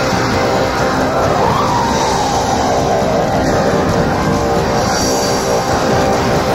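Rock-style theme music for a TV show's opening titles, loud and steady, with a gliding tone that swoops up and slowly falls around two seconds in. It is heard off a VHS recording of the broadcast, with audio distortion from the tape.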